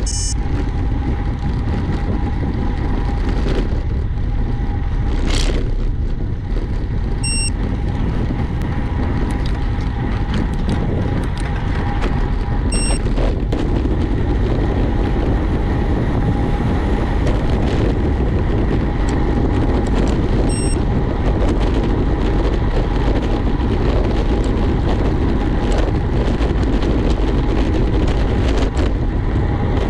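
Steady wind rush and road noise on the microphone during a road-bike ride. Three short high-pitched beeps come through, spaced several seconds apart.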